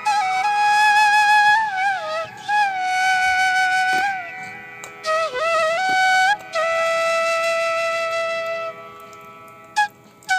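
Background music: a flute playing a slow melody of long held notes that bend and slide into the next, in a South Indian classical style.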